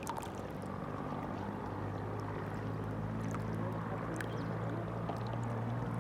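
River water flowing steadily, with scattered small splashes and drips over a low steady hum.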